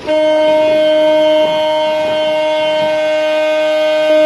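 Car horn held in one long, unbroken blast that starts suddenly, over the hiss of tyres on a wet road.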